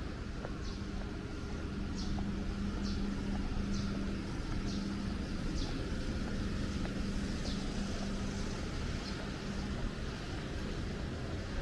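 Steady low rumble with a held hum, and a short high chirp repeating roughly once a second.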